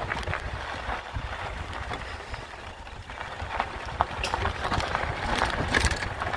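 Irregular gravel crunches from walking along a dirt road, over a low wind rumble on the microphone.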